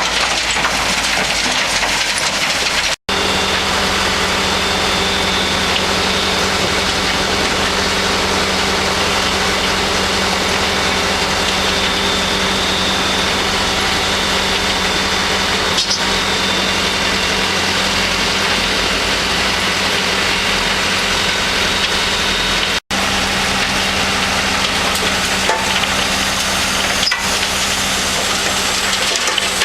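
Terra Select DT-5 mobile trommel screen running on demolition waste: a steady diesel engine hum under a dense, continuous clatter of material tumbling in the turning drum. The sound breaks off for an instant twice.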